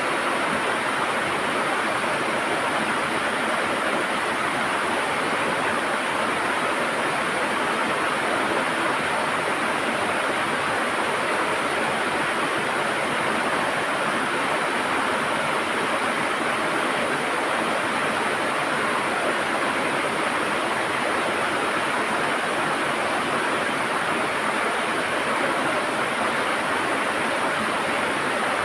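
River water gurgling and rushing steadily over stones, an even, unbroken wash of sound.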